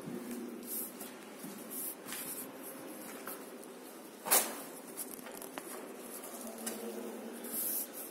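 Footsteps scuffing and crunching on a gritty concrete floor in a small, enclosed concrete passage, with one sharp knock about four seconds in.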